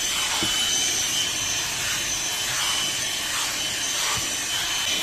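Bauer cordless hand vacuum running with a steady high whine while its nozzle rubs and scrapes over car carpet, with a few light knocks.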